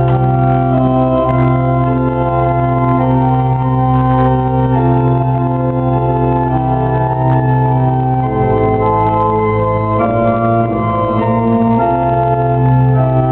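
Church organ playing a hymn in slow sustained chords, with a deep bass note held under them that changes about eight seconds in.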